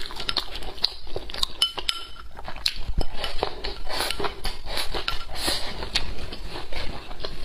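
Wooden chopsticks clicking and scraping against a ceramic rice bowl as rice is shoveled into the mouth, mixed with chewing. A couple of clinks ring briefly about a second and a half in.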